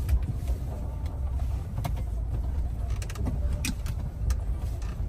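Steady low rumble of a vehicle moving slowly along a dirt track, heard from inside the cabin, with a few scattered sharp clicks and knocks.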